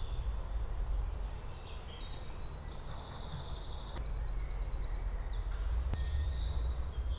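Songbirds singing in woodland: a fast high trill about three seconds in, then a quick run of repeated notes, with scattered chirps, over a steady low rumble.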